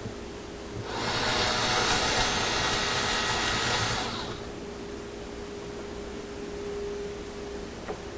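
Power driver running steadily for about three seconds, starting about a second in, backing out the reverse-threaded screw on the LG dishwasher's circulation pump.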